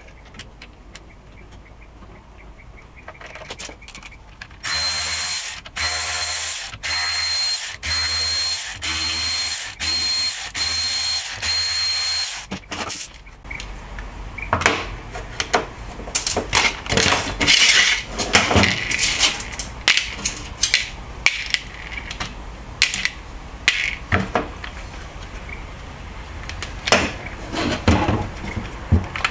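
A cordless power drill-driver run in a string of about eight short bursts, each with a steady high whine. After that come many sharp plastic clicks and knocks as parts are handled.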